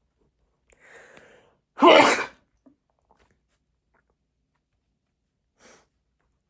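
A person sneezing once: a soft breathy intake of breath, then a single loud sneeze about two seconds in. A faint short breath or sniff follows near the end.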